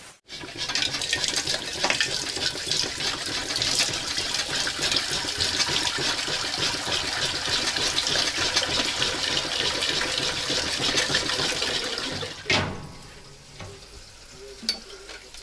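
Water running from a kitchen tap into a pot, filling it; the flow is shut off with a clunk about twelve seconds in.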